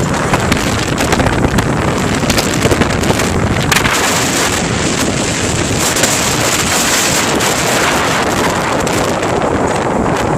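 Loud wind noise buffeting the microphone of a moving vehicle, a steady rush with fast crackling gusts over the road noise.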